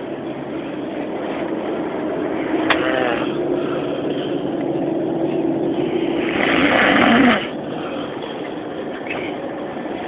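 A person snoring in their sleep over the steady rumble of a moving vehicle, with one loud, noisy snore about six and a half seconds in.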